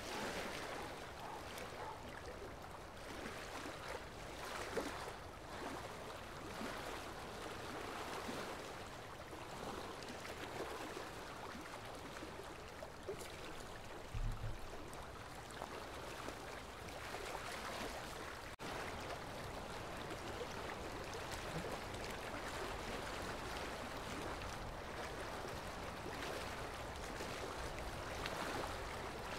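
Steady flowing-water noise like a stream, with a brief low thump about halfway through and a momentary break shortly after.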